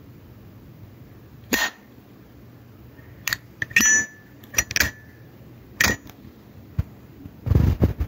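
Zippo Armor lighter's metal lid being snapped shut and flicked open again. It makes a string of sharp clicks, a couple of them with a brief ringing metallic ping. Near the end comes a short rough rasp as the flint wheel is struck and the wick relights.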